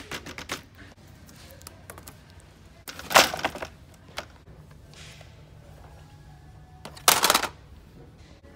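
Packaged art supplies dropped into a red plastic shopping basket: a sharp click at the start, then two short rustling clatters, about three and seven seconds in, as shrink-wrapped canvas panels and then a plastic watercolor paint palette land in it. Music plays faintly underneath.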